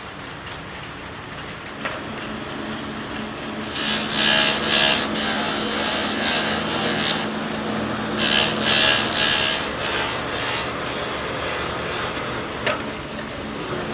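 A woodworking machine running with a steady hum, working a wooden piece in two loud, noisy passes of three to four seconds each: the first begins about four seconds in, the second about eight seconds in.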